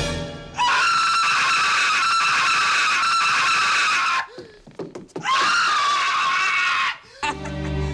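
A man screaming in terror: two long, high-pitched screams, the first about half a second in and the second starting about five seconds in.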